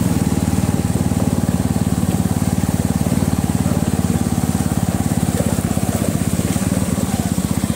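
Bajaj Pulsar 200 motorcycle's single-cylinder engine running steadily as the bike is ridden slowly, a fast, even pulsing note.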